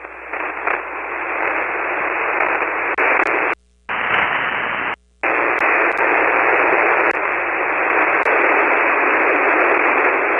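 Steady hiss of band noise from a ham radio receiver on an empty single-sideband channel in the 40-metre band; it cuts out completely twice, briefly, a little before the middle.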